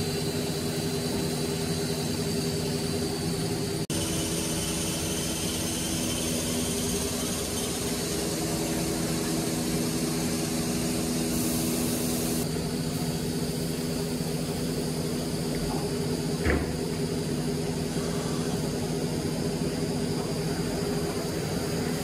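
HOLZTEK PRO-R1A CNC nesting router running: a steady machine hum with several steady tones under a hiss, from the spindle and the vacuum and dust extraction. A very brief drop-out about four seconds in, and a short knock about two thirds of the way through.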